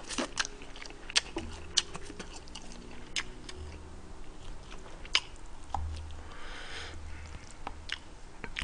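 A man chewing food close to the microphone, with several sharp clicks and smacks scattered through it.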